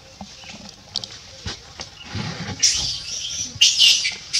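Macaques squealing: high-pitched, scratchy calls in several short bursts starting about halfway in, the loudest near the end.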